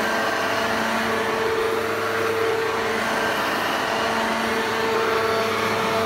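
Hoover Junior U1104 upright vacuum cleaner running steadily: an even motor hum over a rush of air.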